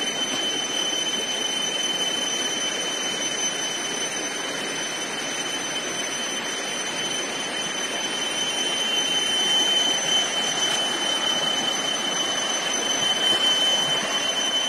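Steady rushing and gurgling of a shallow stream flowing over rocks, with a thin steady high-pitched tone above it.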